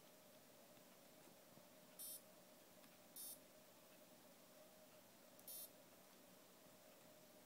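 Portable electronic chess computer giving three short high-pitched beeps, each well under half a second, about two, three and five and a half seconds in.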